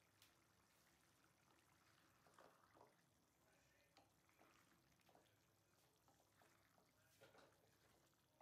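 Near silence, with a few faint scrapes and soft knocks of a spatula stirring thick curry in a steel pan.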